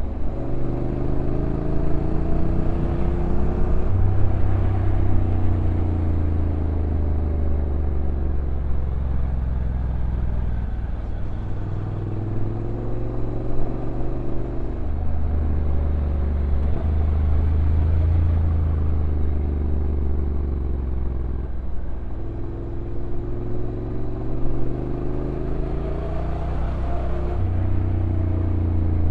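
Honda NC750X DCT's parallel-twin engine running while riding downhill, its pitch rising and falling repeatedly, with a few sudden steps as the dual-clutch gearbox changes gear.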